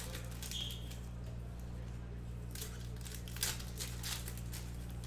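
Foil trading-card pack wrappers crinkling and cards rustling in the hands as packs are opened, in a few short bursts over a steady low hum.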